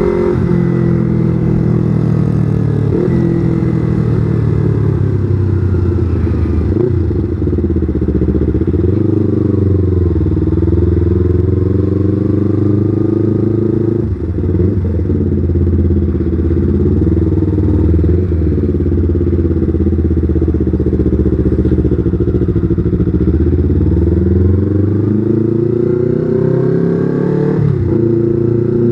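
Yamaha R25's 250 cc parallel-twin engine under way, its pitch climbing and falling as the bike accelerates and slows. There are sharp breaks several times, one after a long climb near the end.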